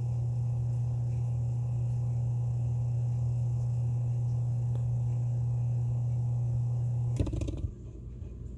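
Leslie speaker upper slow motor humming steadily, then about seven seconds in it drops out with a short rattling clatter as its spindle bounces. This is the sign of a worn slow motor due for a rebuild.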